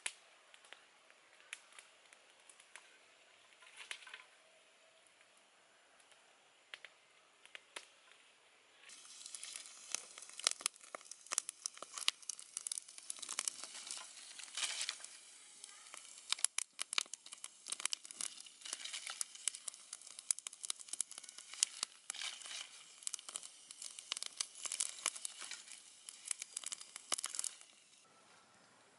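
Wood fire crackling and popping under a cooking pot, with dense sharp crackles from about nine seconds in until near the end. Before that there are only faint scattered ticks.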